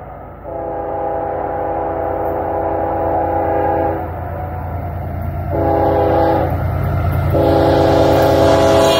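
Diesel locomotive horn on an approaching GE ES44AC sounding several notes at once, blown long, short, then long, the closing blasts of a grade-crossing signal. Under it the low diesel engine rumble grows louder as the train nears.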